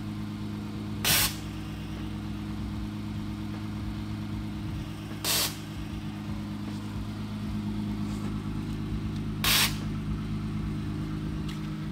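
Air Lift Performance 3P air suspension calibrating: three short hisses of air from the valve manifold, about four seconds apart, over a steady mechanical hum.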